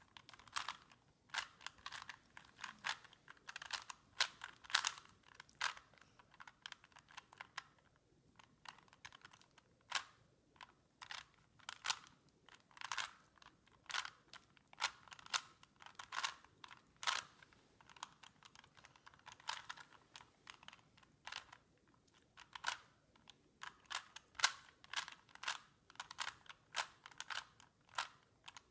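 Plastic Rubik's Cube layers clicking as they are turned quickly by hand, in fast irregular runs of clicks with brief pauses between them.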